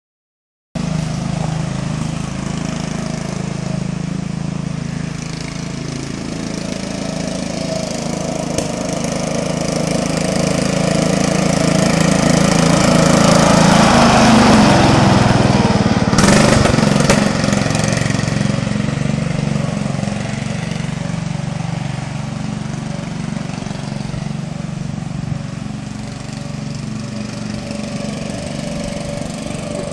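Riding lawn tractor's engine running steadily. It grows louder as the mower passes close by about halfway through, then fades as it drives away. A brief sharp knock sounds just after it passes.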